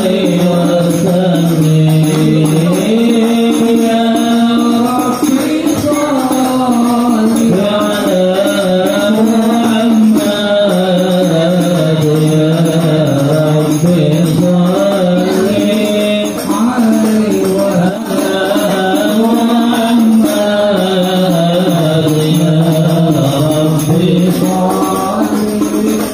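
Sholawat, Islamic devotional chant in praise of the Prophet Muhammad, sung in a slow melodic line with long held, wavering notes.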